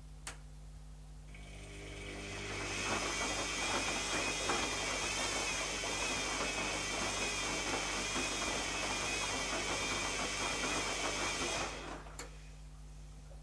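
Zanussi ZKN7120L washing machine's drum motor clicking on, running up over a second or so to a steady, wavering whine with a rough churning underneath as it turns the drum, then winding down, with a second relay-like click just after it stops.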